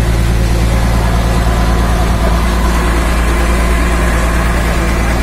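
Passenger boat's engine running steadily, a loud low drone heard from on board.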